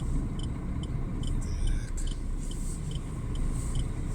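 Truck's diesel engine running, a steady low rumble heard from inside the cab, with a light regular ticking about twice a second.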